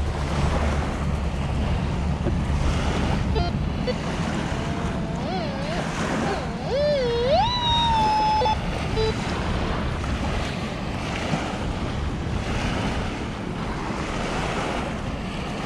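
Surf washing on the beach with wind buffeting the microphone. About halfway through, a wavering tone rises in pitch and holds for a couple of seconds.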